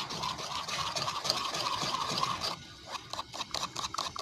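A metal utensil beating thick batter in a glazed clay bowl, scraping against the bowl's sides and bottom, to break up lumps. It scrapes continuously at first, then from about two and a half seconds in settles into quick, even beating strokes, about five a second.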